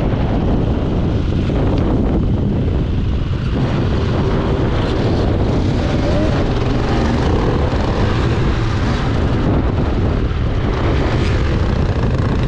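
Enduro dirt bike engine running steadily, heard close from the rider's own on-board camera.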